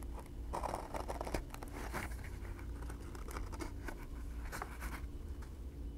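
Craft knife slicing and scraping through a stout leather lining as it is trimmed flush along a holster's edge: a run of short scratchy cuts in the first two seconds, then a few scattered strokes.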